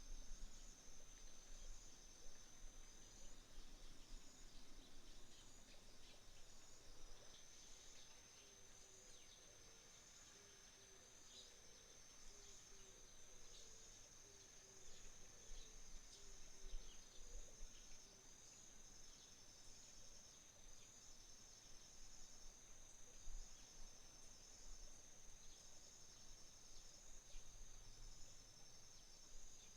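Autumn insects, crickets among them, trilling in a faint, continuous high tone, with a second insect's chirps pulsing regularly beneath it. Scattered short bird chirps come through in the middle.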